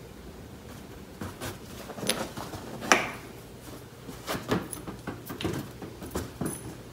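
A cat batting and pushing a rubber balloon across a hardwood floor: scattered irregular taps and scuffs of paws and balloon on the wood.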